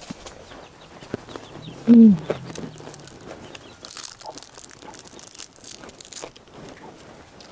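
Fingers tearing and breaking apart a dry, fried salted tilapia (ikan asin mujair), with scattered small crackles and crunches, thickest in the second half. About two seconds in, a short loud voice-like call drops in pitch.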